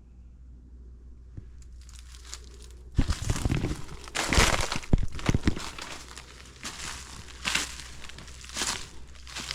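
Footsteps crunching through dry leaf litter. They start about three seconds in with a loud stretch of crunching and rustling, then settle into steady strides, roughly one a second.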